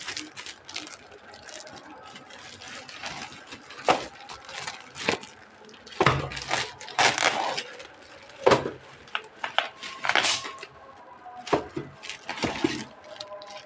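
Art supplies and their packaging being handled: irregular rustling, clicks and small clinks and clatters, a few of them sharper and louder.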